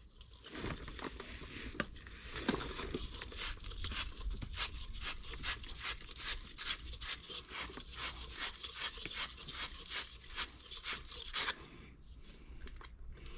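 Wire fitting brush scrubbing the inside of a copper 90° elbow, a rhythmic scratchy rubbing of about two strokes a second that stops about two seconds before the end. This cleans the copper so the solder will stick.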